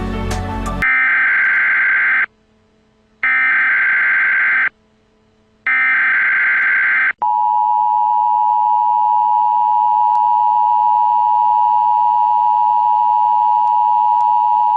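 Emergency Alert System tones: three loud, buzzy bursts of SAME digital header data, each about a second and a half with a short silence between. About seven seconds in comes the steady two-note EAS attention signal, which holds for about eight seconds.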